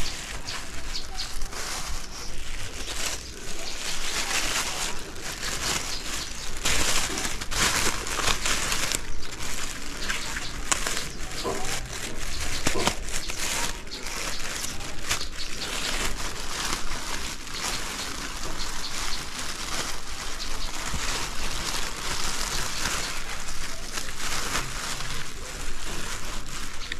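Thin plastic bag being handled, crinkling and rustling without a break, with irregular crackles.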